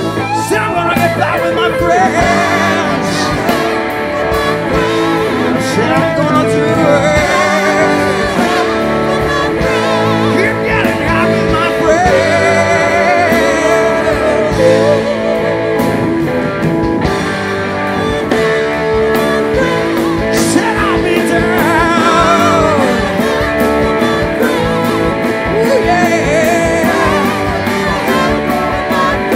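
Live blues-rock band playing: electric guitars, bass and drums, with singers' voices over the band.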